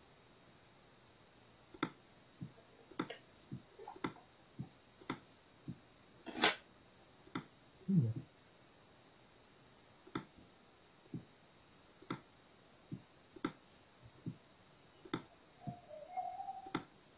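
Faint, irregular clicks, about one or two a second, with a short rustle about six seconds in, a low brief sound at about eight seconds and a short wavering tone near the end.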